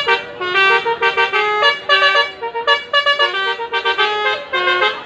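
Bus telolet horn playing a quick tune of short notes that step from pitch to pitch, several horn tones sounding together.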